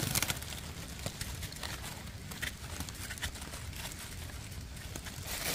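Faint scattered clicks and light scraping as a knife blade scrapes soil from the base of a freshly dug white amanita mushroom held in the hand, with some rustling of dry leaves.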